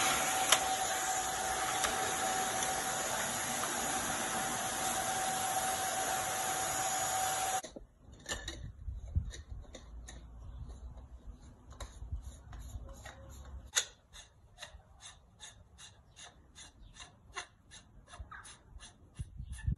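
Vacuum cleaner running steadily with a high whine while the pool floor is vacuumed, cutting off abruptly about eight seconds in. After that come small sharp clicks, a few at first and then about two or three a second, as plastic pool fittings are screwed by hand into the wall passthroughs.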